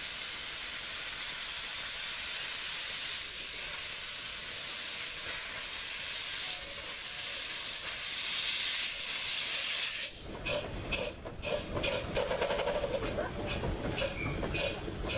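Miniature steam locomotive letting steam jet from its open cylinder drain cocks: a steady loud hiss that cuts off sharply about ten seconds in. After that, lower rumbling noise with light regular clicks as the locomotive moves along.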